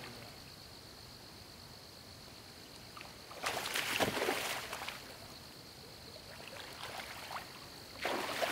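Water splashing around a person's legs as they wade quickly through a shallow river in waders, in a loud burst about three and a half seconds in and again near the end, with a low steady hiss of water between.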